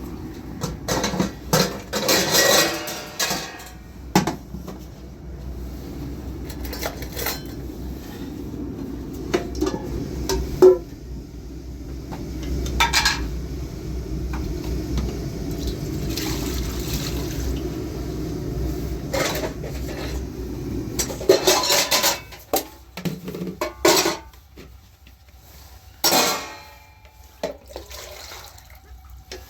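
Repeated clattering knocks and clinks of hard objects, over a steady low rumble that stops about three quarters of the way through.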